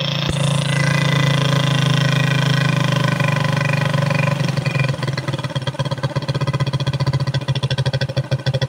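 Suzuki Smash single-cylinder four-stroke motorcycle engine running steadily for about four seconds, then dropping to an uneven, stuttering idle. The idle is misfiring, with firing that doesn't run continuously. The owner puts this down to the freshly cleaned carburettor's air screw, which is seized and can't be adjusted to tune it.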